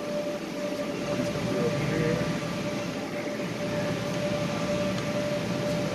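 Steady arcade room din: a continuous mix of game-machine noise with a constant hum-like tone running through it.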